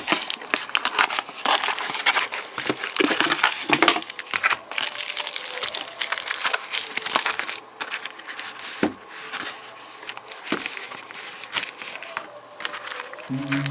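Packaging crinkling and rustling as a replacement phone display module is unwrapped. Dense crackling handling comes first, then sparser clicks and rustles for the last few seconds.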